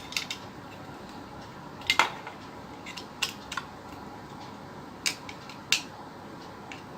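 A handful of short, sharp clicks and taps at irregular intervals as the Wi-Fi module and its wiring are handled and fitted to a bracket inside a TV.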